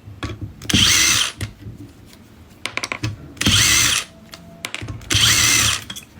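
Cordless electric screwdriver running in three short whining bursts, each under a second, backing out the screws that hold the alternator's voltage regulator; small metallic clicks between the bursts.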